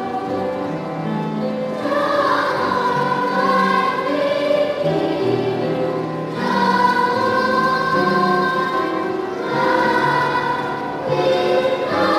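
A choir singing a slow song in long held phrases, with new phrases coming in about two, six and nine and a half seconds in.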